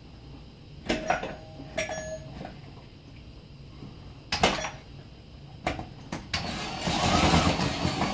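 Knocks and clicks of screws being tightened by hand into wall anchors as a door chime box is fixed to the wall, two of them followed by brief faint metallic ringing. From about six seconds in, a louder rough scraping noise builds toward the end.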